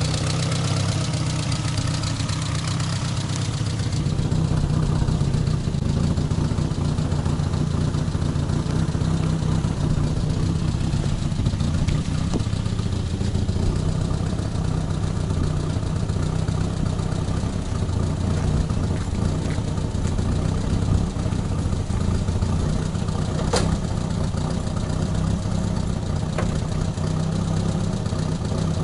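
Datsun A12 four-cylinder engine, swapped into a Suzuki SJ410, idling steadily. A single sharp click cuts through about two-thirds of the way in.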